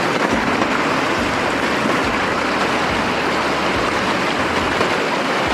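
Rushing creek water, a steady, even rush.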